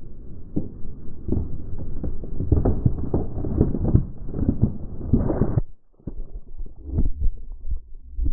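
Car tyre crushing a row of slime-filled plastic bottles: a dense run of crackling and popping as the plastic crumples and bursts, over a low rumble, muffled and low-pitched. It breaks off briefly just before the six-second mark, then scattered cracks follow.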